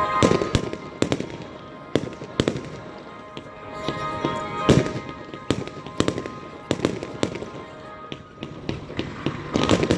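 Fireworks bursting overhead: a string of sharp bangs and crackles, the biggest about half a second in, at about two seconds and just before the five-second mark, with rapid crackling toward the end. Music plays underneath.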